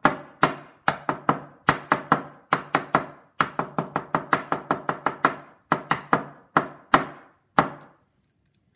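A hair stacker loaded with deer hair rapped again and again on the tabletop to even up the hair tips: sharp knocks about three a second, in uneven bunches, stopping about eight seconds in.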